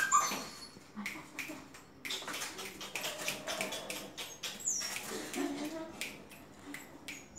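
Labrador puppy whining: a short high yelp at the very start, then faint whimpers, with scattered soft clicks.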